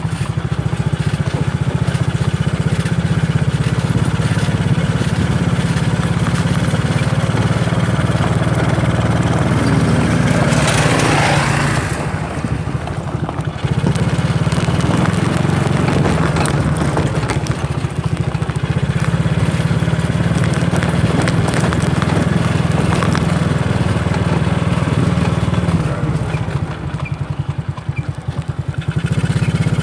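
Engine of a 125cc ATV running steadily under way, easing off briefly about twelve seconds in and again near the end. A short rushing noise comes just before the first dip.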